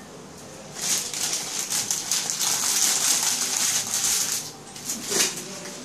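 Medical adhesive tape being pulled off its roll and wound around a wrist: a long rasping, crackly strip-pulling sound of about three seconds, then a short sharp click.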